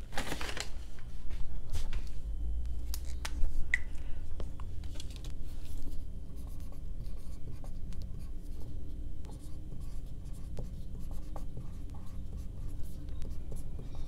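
Felt-tip marker writing on a plastic-covered paper sheet: a run of short strokes and small taps of the pen tip, after a brief rustle at the start.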